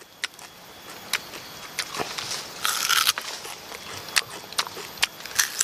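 Biting into and tearing the fibrous young stem of a sugar palm (aren): a string of short sharp cracks and crunches, with a longer crackle about two and a half seconds in.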